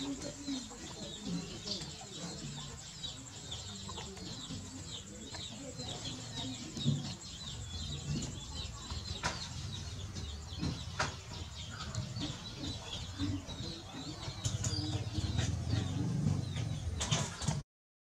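Many birds chirping continuously in short high calls, over low rustling and a few sharp clicks.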